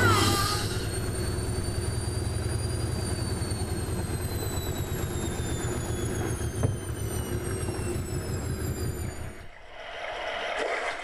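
Jet airliner passing low overhead: steady engine noise with high turbine whines that slowly fall in pitch, cutting off suddenly about nine and a half seconds in.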